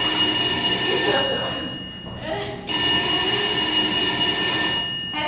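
Telephone bell ringing in long rings of about two seconds each: one ends about a second in and the next starts near the middle. Voices can be heard faintly underneath.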